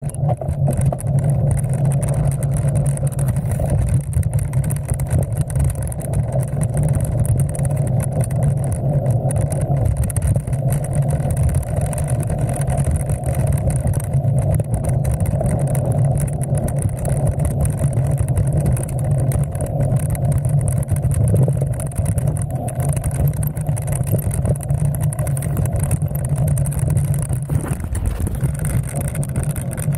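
Steady rumble of a gravel bike's tyres rolling over a dirt trail, heard close up through a handlebar-mounted camera.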